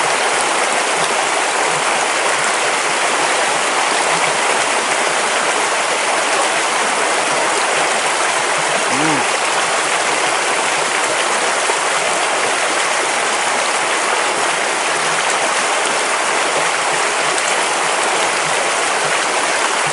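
Small stream running, a steady even rush of flowing water.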